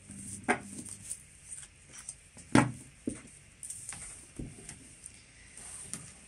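A deck of angel oracle cards being shuffled and handled by hand: soft card rustles with a few sharp taps and clicks, the loudest about two and a half seconds in.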